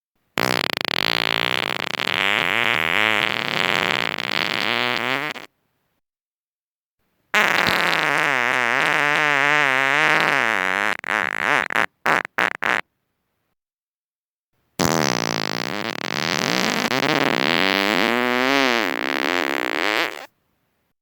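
Three long human farts, each several seconds long with a wavering, warbling pitch, separated by silent gaps; the second breaks up into a few short sputters at its end.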